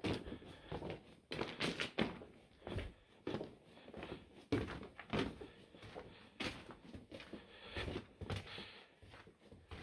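Footsteps crunching and thudding on the gravelly dirt floor of a mine tunnel, at a walking pace of roughly two steps a second.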